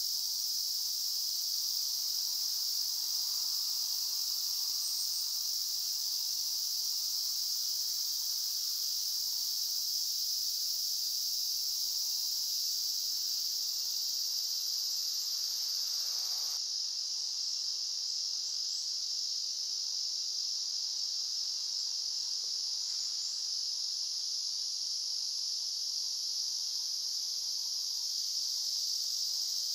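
Steady, high-pitched chorus of insects trilling without a break, typical of late summer.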